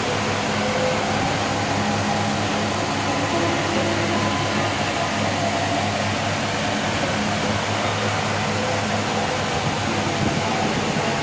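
Steady hum and rushing air inside a moving Ozone passenger elevator car.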